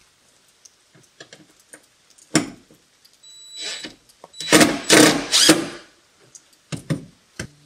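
Cordless drill working into the sheet-metal rear cargo door of a Ram ProMaster van while the upper storage panel is fixed with sheet metal screws. It whirs lightly and then runs under load in a few short bursts just past the middle. There are clicks and a sharp knock before it.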